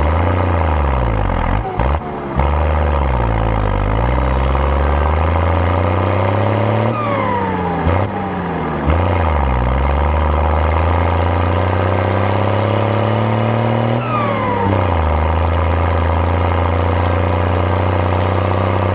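New Holland tractor engine running under changing revs. Twice, about 7 and 14 seconds in, its pitch drops quickly and then climbs slowly back up.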